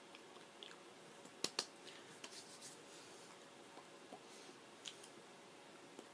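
Quiet room with scattered faint clicks and taps as hands meet and brush together while gesturing; two sharp clicks close together about a second and a half in are the loudest.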